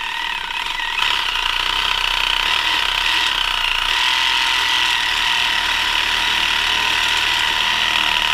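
Reciprocating saw cutting into the outer shell of an E46 rear bushing whose rubber centre has already been knocked out. The saw builds up over the first second, then runs steadily with a loud buzzing rasp.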